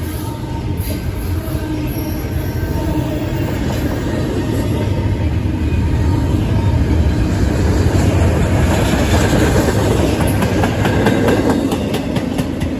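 Double-stack intermodal train's well cars rolling past: a steady rumble of steel wheels on rail with clickety-clack, growing louder toward the middle, with a run of quick clacks near the end.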